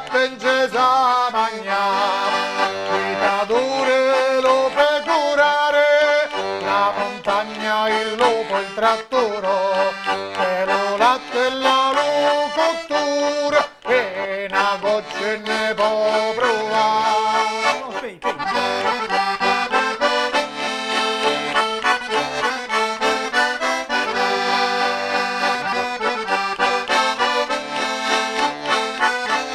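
Diatonic button accordion (organetto) playing a traditional folk tune without singing: a moving melody over a held bass note, with a couple of brief breaks about 14 and 18 seconds in.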